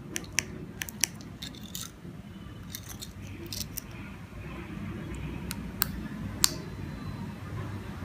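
A dozen or so sharp clicks, most in the first four seconds and a few more near the end, from a 433 MHz remote-control relay receiver board: its small learning pushbutton being pressed and its Songle 12 V relay switching on and off as the key-fob remote's buttons are pressed. A low hum runs underneath.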